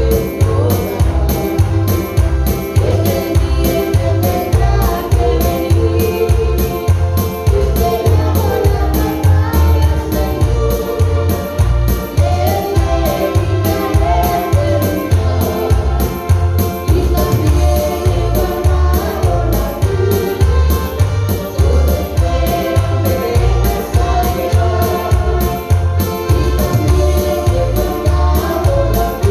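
Live Christian praise music: an electronic keyboard with a steady, pulsing bass beat, and a wavering melody line with singing over it.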